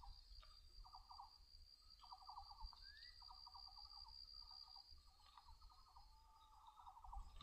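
Faint marsh ambience of calling insects: a steady high whine with repeated short, buzzy pulsed trills every second or so, and one brief rising chirp near the middle.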